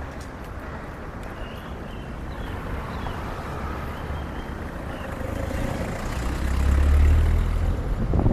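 Street traffic noise. A passing motor vehicle's low engine rumble swells, peaks about seven seconds in, then eases.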